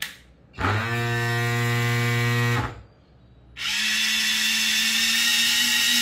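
A mini washing machine's small electric motor runs dry, spinning its little pulsator in an empty bucket. A short click comes at the start, then a steady whine for about two seconds that stops. After a second's pause it starts again with a higher, thinner pitch.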